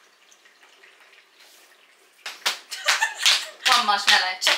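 About two seconds of quiet room, then a run of sharp hand claps and palm-on-palm slaps from a clapping game, with voices chanting and calling along over them.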